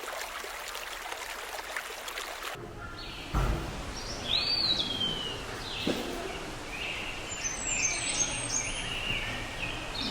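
A steady hiss for the first couple of seconds, then birds chirping: a string of short, high, sliding chirps from about four seconds in over a steady outdoor ambience, likely a sound-effect track of birdsong.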